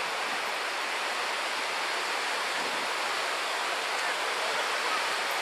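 Steady rushing of ocean surf breaking on a beach, with faint crowd voices in it.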